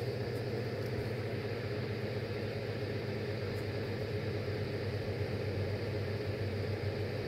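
Electric fan running steadily with a low hum.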